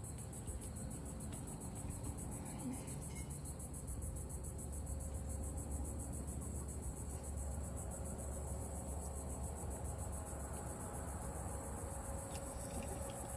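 Evening chorus of crickets: a steady, high, finely pulsing trill, with a low rumble underneath.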